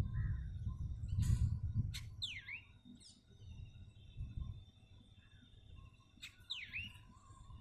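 Songbirds calling: short sharp chips, a swooping call that dips in pitch and rises again, heard twice about four seconds apart, and a thin steady high whistle between them. A low rumble sits underneath in the first couple of seconds.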